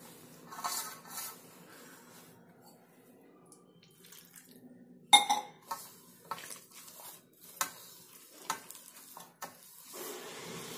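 Hands mixing and kneading crumbly gulab jamun dough in a large stainless steel plate: soft rubbing and scraping, with a handful of sharp knocks against the steel, the loudest about five seconds in. A faint steady hum underneath.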